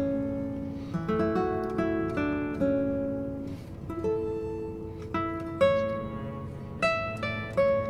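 Background music on a plucked string instrument: a slow melody of single notes and small chords, each note ringing out and fading.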